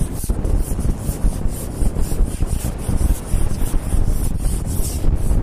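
Wind buffeting and rubbing on the microphone: a steady low rumble with a fluttering hiss over it, and a single click about a quarter second in.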